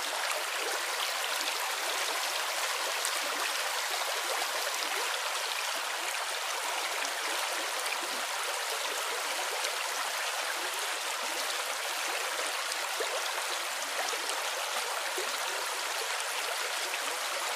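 Water flowing and splashing in a stream: a steady, even rush with fine splashy detail.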